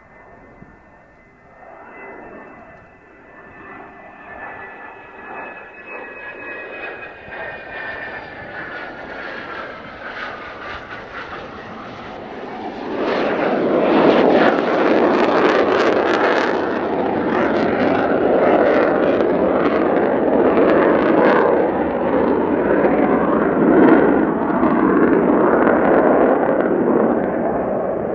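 Mitsubishi F-2 fighter's single turbofan on a low simulated-flameout approach: a jet whine that slides slowly down in pitch. About halfway through, a sudden loud, crackling jet roar as the fighter passes close and pulls up, continuing to the end.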